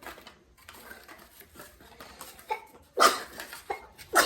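Two short, loud vocal bursts, about three seconds in and again a second later, over faint handling noise.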